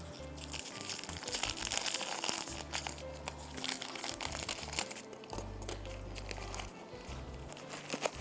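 Plastic spaghetti packet crinkling and rustling as it is cut open with scissors and handled, over background music.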